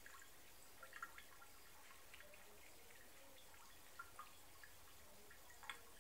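Faint, irregular drips of water plinking in a bathtub from the bath tap, about half a dozen in all, the clearest just before the end.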